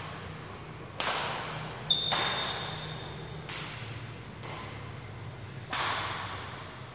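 Badminton rally: rackets striking the shuttlecock about five times, roughly once a second, each hit sharp and followed by the echo of a large hall. A thin steady high tone sounds for about a second and a half early in the rally.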